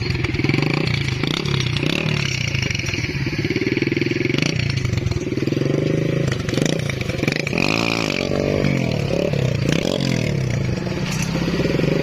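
Honda 70cc motorcycle's single-cylinder four-stroke engine running steadily, with a rise and fall in pitch about eight seconds in as it is revved, while the bike is ridden off.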